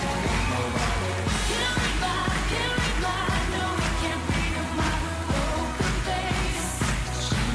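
Pop music with a sung vocal over a steady beat and strong bass.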